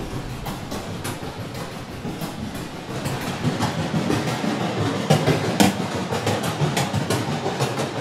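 Dense clattering clicks over a low rumbling noise, growing louder about three seconds in.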